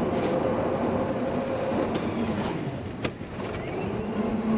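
Golf cart driving along a street: a steady running hum over road and wind noise, with one sharp click about three seconds in.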